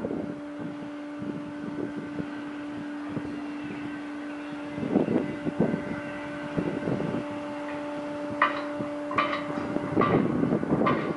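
Machinery of a steel platform running: a steady electric hum, with metallic clanks and rattles from its running gear. Clanks come about halfway through, sharper ticks shortly before the end, and heavier clatter as the hum stops near the end.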